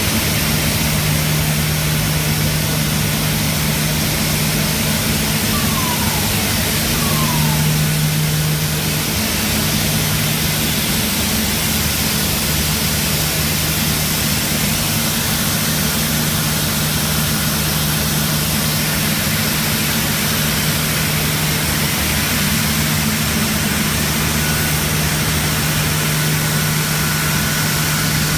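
Paper machine running at production speed, about 810 m/min making 80 gsm paper: a loud, steady mill drone of hissing noise over a constant low hum.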